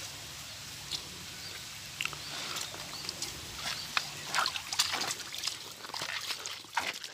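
Footsteps crunching on dry leaf litter and river stones, irregular sharp crackles that come thicker from about halfway through, over a steady hiss of flowing stream water.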